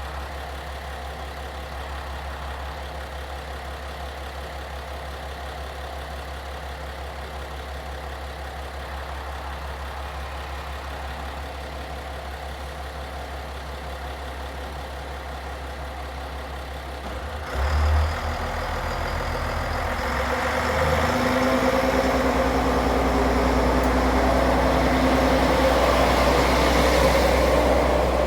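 KiHa 140 diesel railcar's engine idling steadily, then opening up at about 17 seconds in and pulling away, its note rising and growing louder as the single car accelerates from the station.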